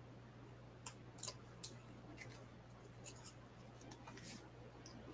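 Near silence: faint, scattered clicks and light rustles of a small paper label being handled on a tabletop, over a low steady hum.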